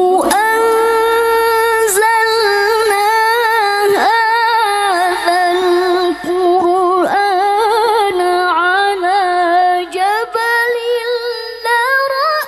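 A female Quran reciter (qariah) chanting tilawah into a microphone: one voice in long held notes with quick wavering ornaments, breaking off briefly about six and ten seconds in.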